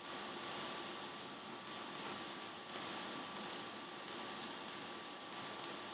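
Scattered light clicks of a computer mouse and keyboard, at irregular intervals, over a faint steady hiss.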